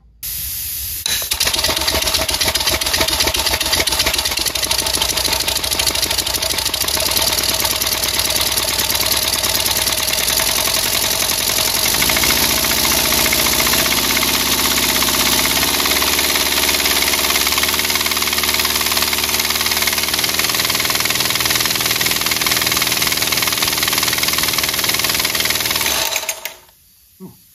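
Homebuilt compressed-air engine running on a test stand: rapid air-driven pulsing under a strong hiss of escaping air. It picks up speed partway through and then cuts off sharply near the end. It is held below full speed because the loosely bolted engine shakes on the stand.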